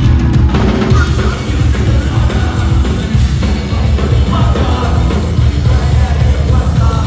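Live rock band playing loudly: drums, electric guitar and heavy bass in a continuous, dense mix, heard from the audience in a concert hall.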